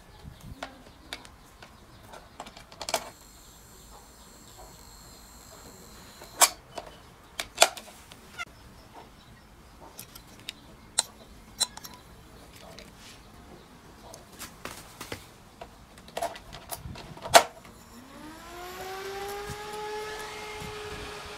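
Sharp clicks and knocks of wires and parts being handled, then near the end a small computer cooling fan spins up: a rising whine that levels off, over a steady rush of air.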